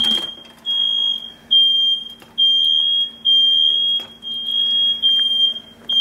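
Kitchen smoke alarm sounding a loud, shrill, high-pitched beep over and over, about one long beep a second with short gaps between. It has been set off while the chili is cooking on the stove.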